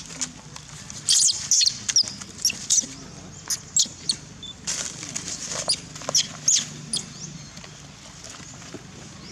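A small pet giving a run of sharp, high-pitched squeaks, about a dozen short calls in quick irregular succession, the angry sound it makes while squabbling over fruit. A faint low hum runs underneath.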